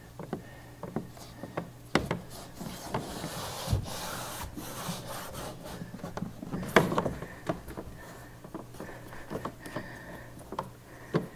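Hands peeling the backing off an adhesive-backed deck pad and pressing and rubbing it down onto a plastic kayak deck: rubbing and scraping with scattered light taps and a dull knock near the middle.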